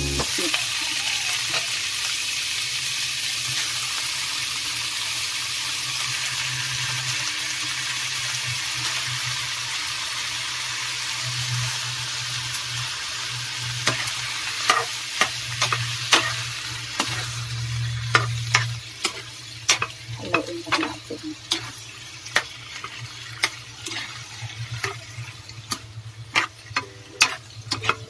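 Raw squid pieces sizzling as they hit a hot oiled frying pan. The loud sizzle fades over the first dozen seconds or so. After that, a metal spatula stirs and scrapes the squid around the pan, with many sharp clicks and knocks against it.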